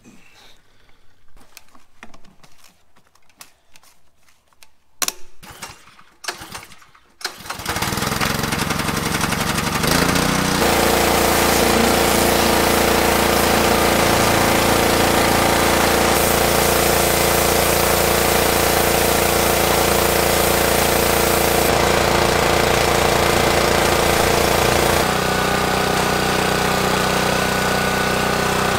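Quiet clinks and knocks of a gas can being handled at the fuel tank, then about a quarter of the way in a Simpson gas pressure washer's Honda GC single-cylinder engine is running loudly and steadily, with the hiss of the high-pressure water jet spraying the truck.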